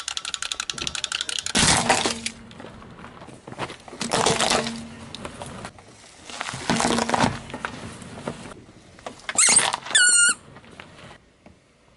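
A car tyre rolling over and crushing objects one after another: first the rapid clicking of a wind-up walking toy, then four loud crunches and cracks as each item gives way under the wheel, with a short falling squeak near the end.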